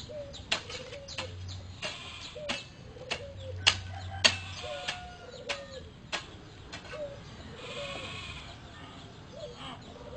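Short animal calls repeated about once a second, with sharp clicks scattered among them.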